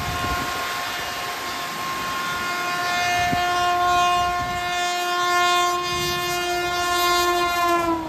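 WAP7 electric locomotive's horn held in one long blast as the express approaches at speed, a lower tone joining the chord about two and a half seconds in. The pitch drops as the locomotive passes near the end, over a steady hiss of heavy rain.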